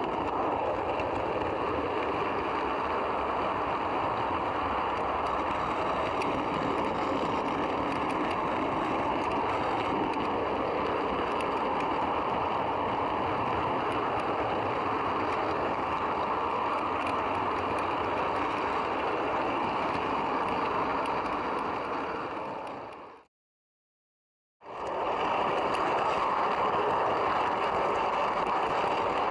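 Steady rolling rattle of a model train's coach wheels running on the track, heard from a camera riding aboard the coach. The sound fades out about 23 seconds in, stops for about a second and a half, then comes back.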